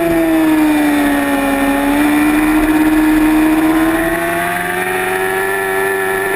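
A sportbike's engine running hard at high revs while under way. The pitch sags a little about a second and a half in, then climbs slowly through the rest as it accelerates.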